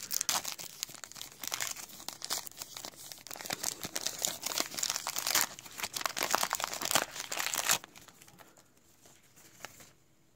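Topps trading card pack wrappers crinkling and tearing as a pack is ripped open by hand, a dense crackle that stops about eight seconds in.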